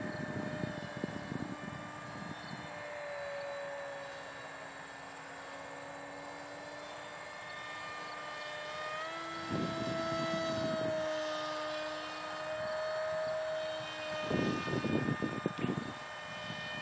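Electric motor and 6x4 propeller of a radio-controlled Panavia Tornado model jet whining in flight, its pitch rising about nine seconds in. Gusts of wind buffet the microphone at the start, around ten seconds in and near the end.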